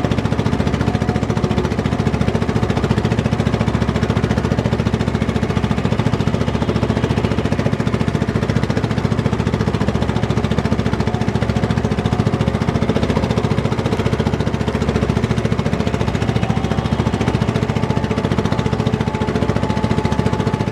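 Engine of a small motorized outrigger boat (bangka) running steadily under way, a loud, fast, even pounding beat.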